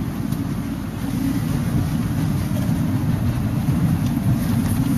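Steady low rumble of a van's engine and tyres on a paved road, heard from inside the cabin, growing a little louder about a second in.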